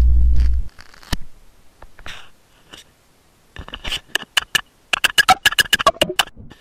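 Microphone handling noise: a loud low electrical hum for about the first half-second, then scattered scratches and, from about three and a half seconds in, a fast run of sharp clicks and taps.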